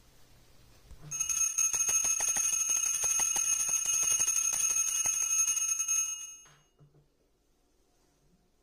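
Small brass puja hand bell rung rapidly and continuously for about five seconds, starting about a second in: a steady bright ringing with the clapper striking many times a second, then it stops.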